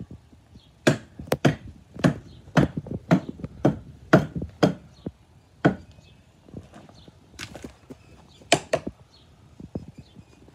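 Hammer blows on the base of a wooden post. About ten sharp strikes come in a quick run at roughly two a second, then a few scattered blows near the end.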